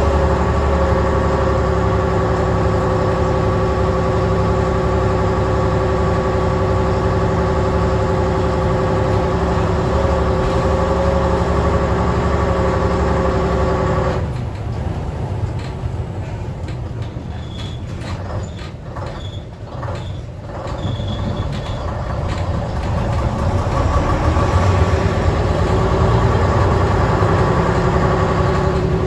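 Leyland Titan OPD2/1 bus's diesel engine heard from inside the saloon, running steadily under way. About halfway through the engine note drops away to a quieter spell with light rattles and clicks. It then builds up again, rising in pitch, as the bus pulls away.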